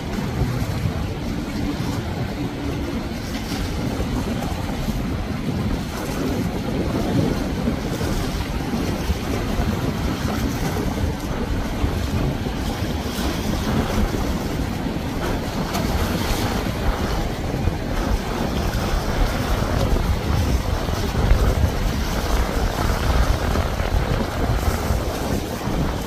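A motorboat running through choppy water, its engine and hull wash mixed with surf, and wind rumbling on the microphone.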